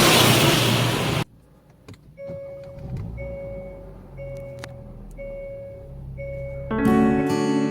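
A loud steady rushing noise cuts off abruptly about a second in. Then a car's electronic warning chime beeps about once a second, five times, over a low engine hum. Acoustic guitar music starts near the end.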